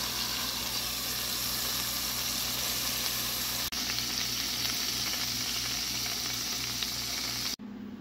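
Burger patty frying in hot oil in a frying pan: a steady, dense sizzle, broken for an instant about halfway through and cutting off shortly before the end.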